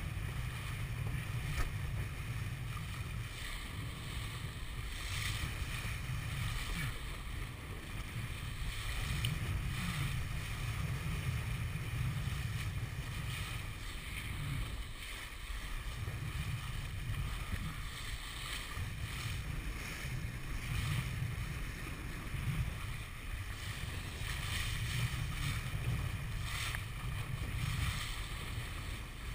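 Wind buffeting the microphone of a camera mounted on a 470 sailing dinghy that is heeled over under sail, with water rushing and splashing along the hull in uneven surges.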